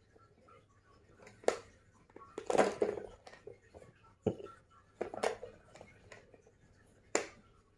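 Plastic pencil box clicking and knocking in a toddler's hands as she works at its lid to open it: a handful of sharp clicks and taps spread a second or two apart, with a short busier cluster about a third of the way in.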